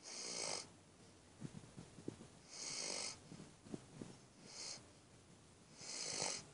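Snoring: four hissing breaths, about one every one and a half to two seconds, with short low rattles in the pauses between them.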